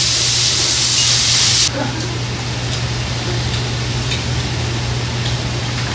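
Meat sizzling in a frying pan: a loud hiss that cuts off suddenly a little under two seconds in, leaving a quieter steady hiss and low hum with a few faint clicks.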